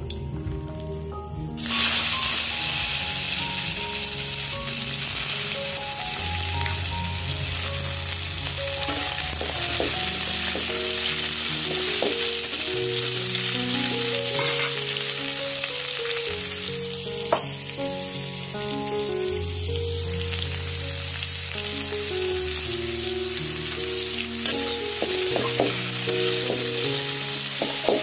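Raw green mango slices hitting hot oil in a kadhai, a loud frying sizzle that starts suddenly about two seconds in and keeps going, with a few clicks of the spatula as the slices are stirred. Background music plays underneath.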